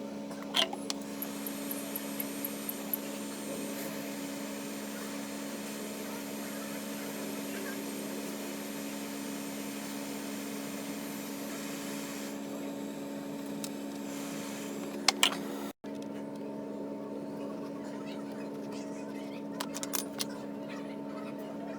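Steady electric fan hum with a constant low drone, broken briefly about three-quarters through, with a few light clicks of small tools near the end.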